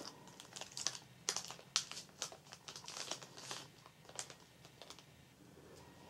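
Thin clear plastic sleeve crinkling as a fountain pen is pulled out of it: a string of short, irregular crackles and clicks, thinning out after about four seconds.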